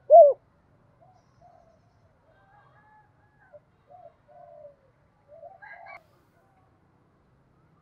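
Spotted dove cooing: a loud, falling final note of a coo right at the start, followed by only faint, short bird notes at intervals.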